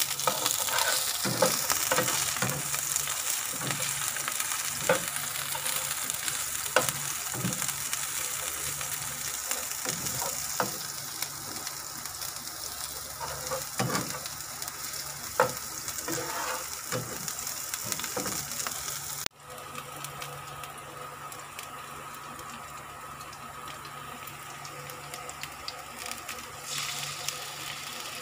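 Sliced scallions sizzling in hot oil in a nonstick frying pan, with a slotted spatula scraping and knocking against the pan as they are stirred. About two thirds of the way through the sound cuts, and a softer sizzle carries on under a steady hum.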